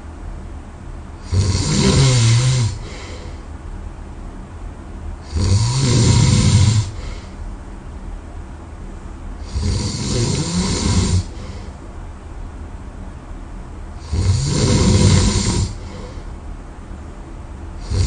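A person snoring heavily in sleep: four loud snores, one about every four seconds, each lasting about a second and a half, with quieter breathing between.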